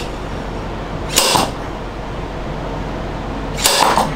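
A socket wrench working the forcing screw of a large OTC bearing puller that is drawing a tightly stuck bearing out of an NSG370 transmission's rear housing. It goes in strokes: two short metallic bursts about two and a half seconds apart, over a steady hum.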